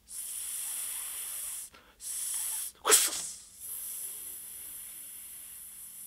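A man hissing through his teeth in long 'ssss' breaths, three in a row with short gaps, a sharp louder burst about three seconds in, and a last long hiss that slowly fades.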